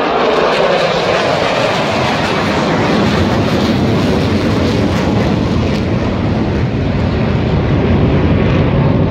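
Loud jet engine noise from a formation of five fighter jets flying overhead. The noise deepens as the jets pass and move away.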